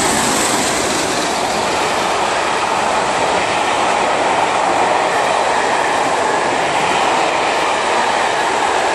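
Steam-hauled passenger train behind the A1 Pacific locomotive 60163 Tornado running through the station: a loud, steady rush of wheels on the rails.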